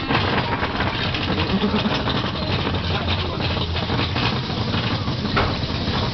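Big Thunder Mountain mine-train roller coaster running along its track: a dense, steady rattle over a constant low rumble.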